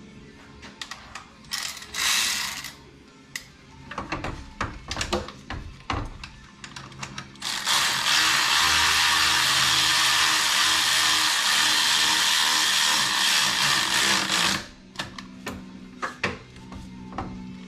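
Ratchet clicking and metal tool knocks while bolts are tightened, then a power tool runs steadily and loudly for about seven seconds, starting about seven and a half seconds in, before the clicking resumes.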